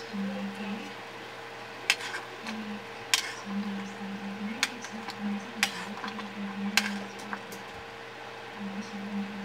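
Metal ladle clinking and scraping against a stainless steel pot while stirring soup with shellfish in it: a handful of sharp clinks, roughly a second apart, over a steady faint hum.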